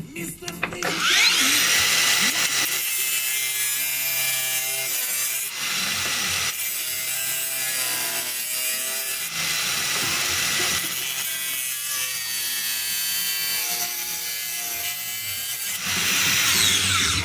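Power tool running under load: it spins up about a second in, cuts or grinds with a harsh, continuous hiss, and winds down near the end.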